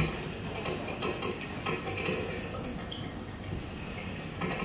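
Irregular light clinks and taps of glassware and cutlery being handled in a bar.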